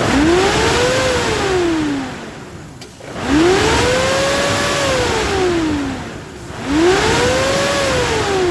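Chevy Trailblazer engine revved three times, each rev bringing a loud rush of wind noise and a whine that rises and falls with the revs. It is the cooling fan pulled round by a faulty fan clutch.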